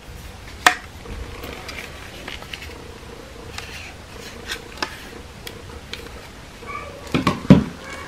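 Hard plastic clicking and knocking as a Xiaomi Mi G10 cordless vacuum's clear-covered brush-roll attachment is handled: a few sharp clicks, then a louder cluster of knocks near the end as it goes back into its cardboard box.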